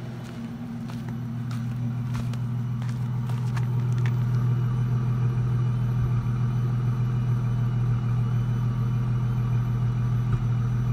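2004 Ford Mustang's 3.8-litre V6 idling steadily, growing louder over the first few seconds, with a single brief pop near the end. The popping is a misfire that the owner traced to a faulty ignition coil pack.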